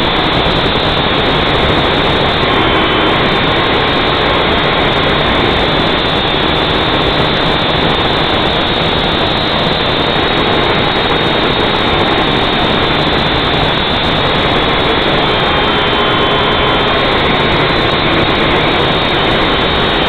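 Syma X5C-1 quadcopter's small brushed motors and propellers running, heard through its own onboard camera: a loud, steady buzzing whine whose pitch dips briefly a couple of times as the throttle shifts.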